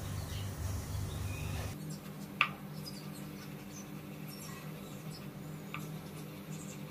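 Kitchen knife cutting chicken sausage on a cutting board: one sharp tap of the blade on the board about two and a half seconds in, then a few faint clicks, over a low steady hum.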